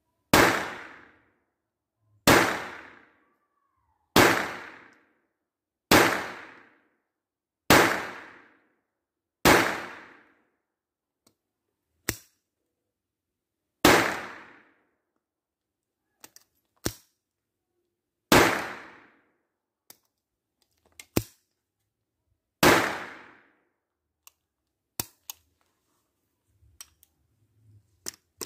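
Taurus PT-22 .22LR pistol firing nine shots of GECO Semi-Auto 40-grain ammunition, each a sharp crack with a long echoing tail. The first six come about two seconds apart; the last three are four to five seconds apart, with a single sharp click before each. Light metal clicks follow near the end as the tip-up barrel is opened.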